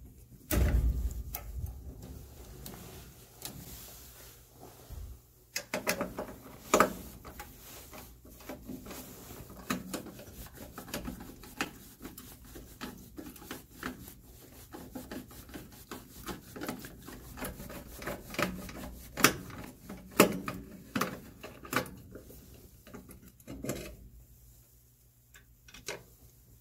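Hands unplugging the power cable connector of a furnace draft inducer motor: irregular rubbing and rustling of wires and plastic, with many sharp clicks and a dull thump about half a second in.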